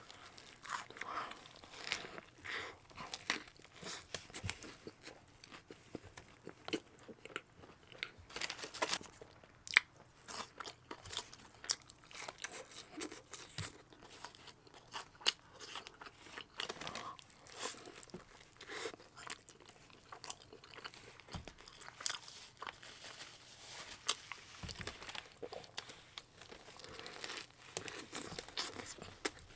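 Close-miked eating of In-N-Out fast food: bites and crunchy chewing, with many irregular small crackles and smacks.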